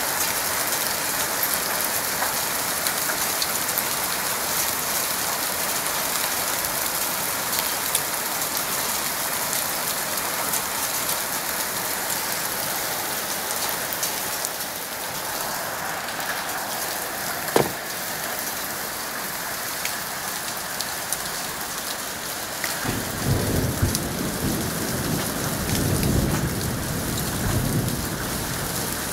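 Heavy rain and hail pelting down in a steady hiss, dotted with the small sharp ticks of stones striking. One sharp knock comes a little past the middle, and near the end a low thunder rumble rolls in under the downpour.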